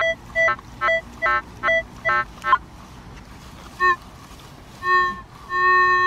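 Minelab metal detector's target tones: a quick run of short beeps, nearly three a second, then two single lower beeps and a lower steady tone held near the end. The signal comes and goes, which the detectorist calls a bit iffy: it could be junk or something good.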